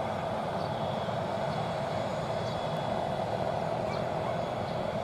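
Steady mechanical drone of airport ramp machinery, even in level and pitch, with a low rumble underneath.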